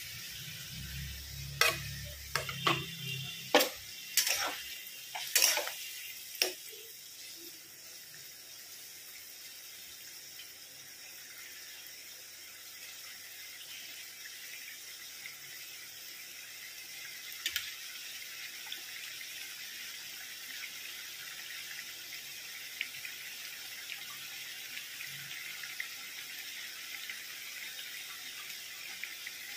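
Fried pointed gourds going into a yogurt gravy in an aluminium kadai, with several sharp knocks of utensils against the pan in the first few seconds. Then the gravy simmers on the gas flame with a steady bubbling hiss.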